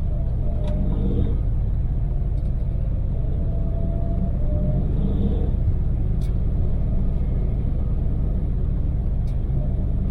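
Daewoo Damas microvan's small three-cylinder LPG engine running steadily at cruising speed, with low road and engine rumble that holds an even level.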